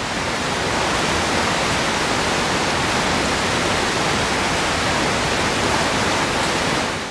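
River water rushing: a steady, even noise of flowing water that fades out near the end.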